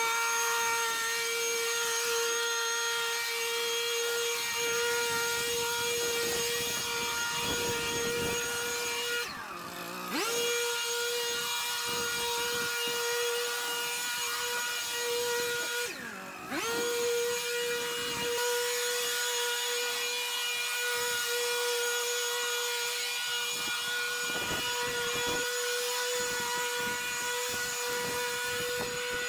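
Pressure-washing machine running with a steady high whine over a hiss. Twice the whine briefly sinks in pitch and level, then climbs back up.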